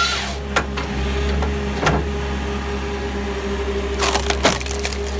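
Dry red gum cracking and splintering as it is split in a Halverson firewood processor, over the steady drone of the machine's engine and hydraulics. Sharp cracks come about half a second in and again near two seconds, then a quick run of cracks around four seconds in.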